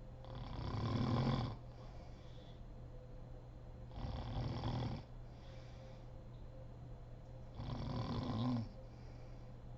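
A sleeping woman snoring: three snores about three and a half seconds apart, each lasting about a second, with quieter breathing between them.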